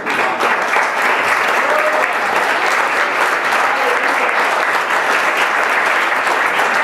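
Congregation applauding, the clapping breaking out at once and holding steady, with a few faint voices in it.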